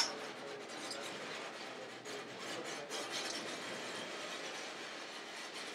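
White Pass & Yukon narrow-gauge passenger car rolling along the track, its body and running gear creaking and rubbing, with a few faint clicks.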